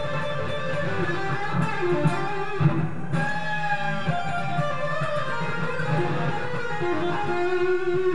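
Fender Player Telecaster electric guitar played through an amp on its Noiseless bridge pickup: a melodic passage of sustained and bent notes.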